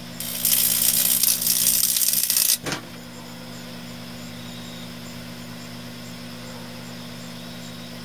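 Hamilton Beach microwave oven running with a steady electrical hum. About a quarter second in, a loud hissing crackle of arcing from the AMD Sempron 2200+ CPU inside starts up. It cuts off about two and a half seconds in with a brief knock, and the hum carries on.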